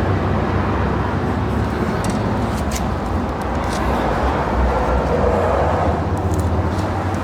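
A vehicle engine running steadily, a low continuous drone with a few faint clicks over it.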